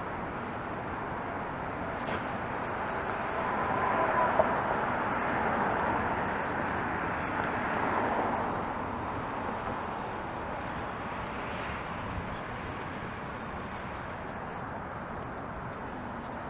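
Steady road traffic on a city street, with passing vehicles swelling louder about four seconds in and again about eight seconds in.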